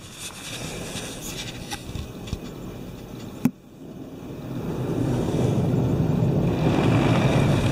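Laserwash G5 touchless car wash spraying its colour polish foam onto the car, heard from inside the car. After a sharp click about three and a half seconds in, the hiss of spray on the car swells up and holds steady.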